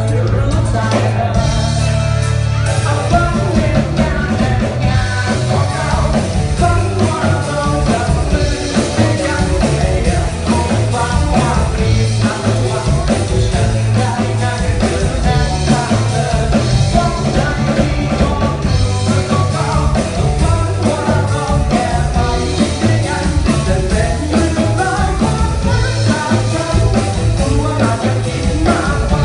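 A live rock band with electric guitars, bass and drums playing a loud, continuous song without a break, heard from within the audience.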